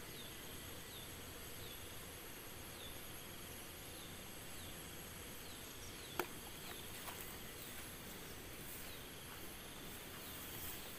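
Insects in a rice paddy: a steady high drone with a short falling chirp repeating about once a second. One sharp click about six seconds in.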